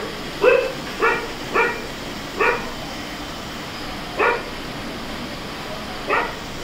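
An animal giving six short, sharp calls, spaced unevenly about half a second to two seconds apart.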